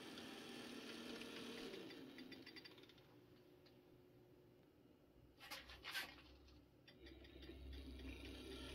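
Faint hum and light rail clicking of an N-scale model diesel locomotive and freight cars running slowly, fading almost to nothing as the train stops. About five and a half seconds in come two short sharp clicks, then the low motor hum returns as the locomotive starts moving again.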